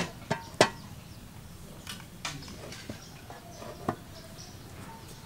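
A metal pot and its lid knocking and clinking as the pot is set down on a clay stove and the lid adjusted. Three sharp knocks in the first second, then a few lighter clinks.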